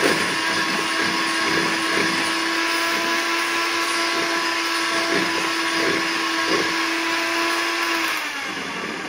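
Electric hand mixer running steadily, its beaters whisking eggs and sugar in a plastic bowl until the sugar dissolves, with uneven thumps. About eight seconds in it is switched off, and its whine falls in pitch and fades as the motor winds down.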